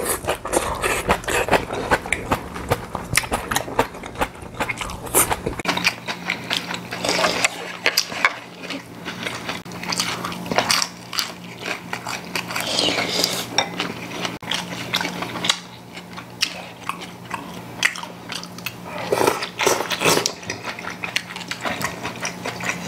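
Two people eating: chewing, with chopsticks clicking and tapping against ceramic bowls and plates.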